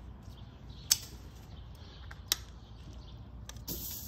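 Two sharp clicks from metal tongs, then, near the end, a steak laid on the grate of a Weber Lumin electric grill set on high, at about 575°F, starts searing with a sudden steady sizzle.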